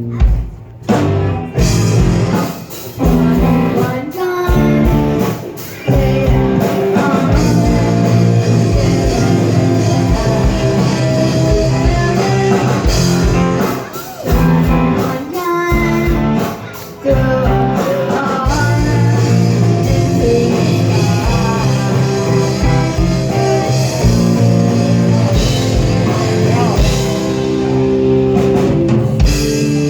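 Rock music with a singing voice, guitar and drum kit. It dips briefly several times in the first half, then runs steadily.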